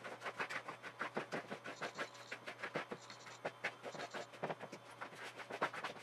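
A metal fork stirring stiff cookie dough in a plastic mixing bowl: rapid, uneven clicking and scraping, several strokes a second, as the flour is worked into the creamed butter and sugar.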